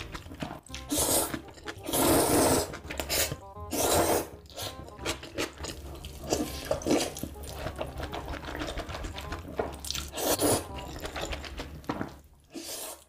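A person slurping spicy noodles, sucking long strands into the mouth in several loud draws. The longest and loudest draw comes about two seconds in, with chewing and smaller slurps between the draws.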